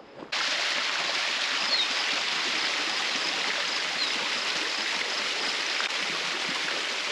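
Steady rush of a stream's running water, starting and stopping abruptly.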